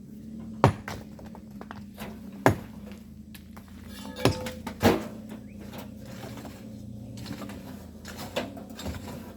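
Sharp metallic clinks of miners' hand tools striking stone and volcanic sand, about five strikes at uneven intervals, over a steady low hum.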